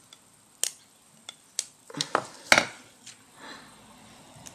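Sharp clicks and taps of a lipstick and its packaging being handled and opened by hand, about half a dozen small knocks in the first three seconds, the loudest about two and a half seconds in, followed by a soft rustle.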